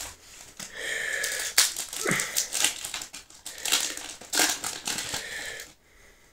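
Crinkling and rustling of a foil Yu-Gi-Oh booster pack wrapper being handled and torn open, in several stretches that stop shortly before the end.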